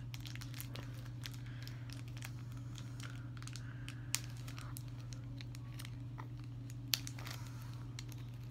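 A small plastic blind-bag toy package being crinkled and torn open by hand, with scattered crackles and a couple of sharper clicks, over a steady low hum.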